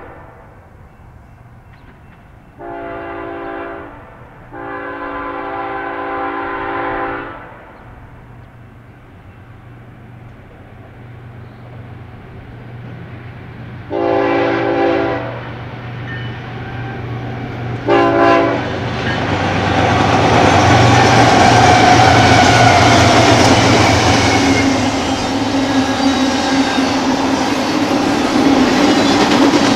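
BNSF diesel locomotives' multi-chime air horn sounding four blasts as the intermodal freight approaches: a short one, a longer one, then two short ones, the last very brief. From about nineteen seconds in, the locomotives' engines pass close, followed by the steady rolling and clatter of double-stack container cars.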